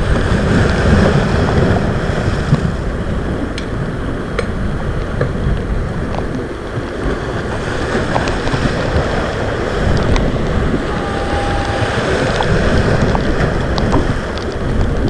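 Strong wind buffeting the microphone over the wash of a rough, wave-tossed sea, rising and falling in gusts.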